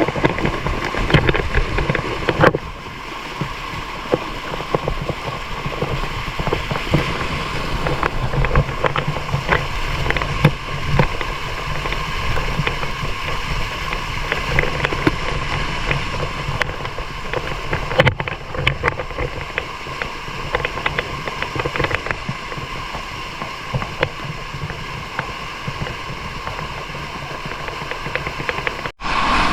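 Steady rush of flowing river water at a waterfall, with scattered splashes and knocks throughout.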